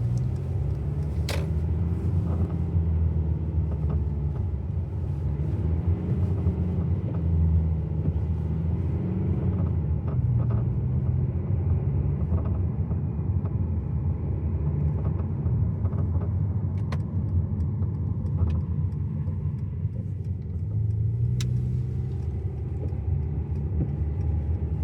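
2019 Mercedes C220d on the move, with a steady low road and running rumble broken by a few isolated sharp clicks. The owner reports a rattle from around the passenger-side front tyre that comes only while the steering wheel is held straight.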